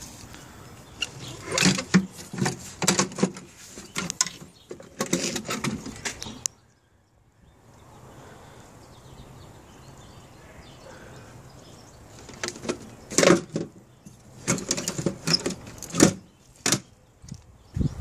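A Harley-Davidson Ultra Classic's hard saddlebag being unlatched and its lid lifted off, then put back and latched: two spells of clicks, clunks and rattles, with a short silent break between them.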